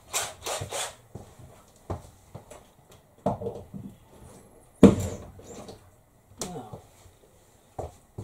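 Scattered knocks and clatter of hand work at a window frame while a roller-blind bracket is fitted, with the sharpest, loudest knock about five seconds in.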